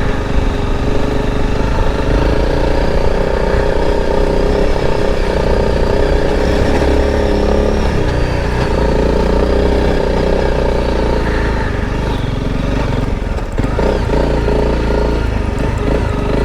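Honda CRF motorcycle engine running steadily while riding along a dirt track, its pitch rising and falling a little with the throttle, with a brief ease-off about three-quarters of the way through.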